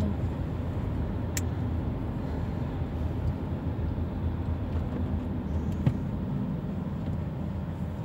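Steady road and engine rumble heard from inside a moving car's cabin, with a brief click about a second and a half in.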